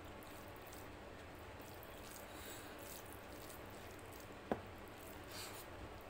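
Fingers mixing and squeezing rice with mutton curry on a plate, making faint wet squishing sounds, with one sharp click a little past halfway.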